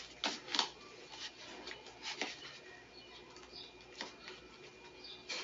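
Laces being pulled tight and tied on Curry 9 basketball sneakers: scattered rustling of laces and shoe upper with a few sharp little clicks.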